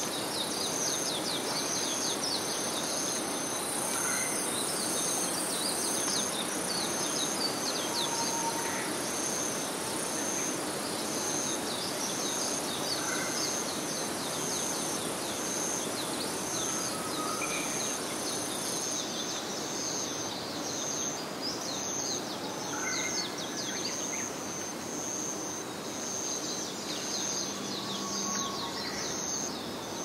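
Evening insect chorus: a steady high-pitched buzz that stops about two-thirds of the way through, a high chirp repeating about twice a second, and dense quick downward-sweeping trills, over an even background hum. Faint short bird calls now and then.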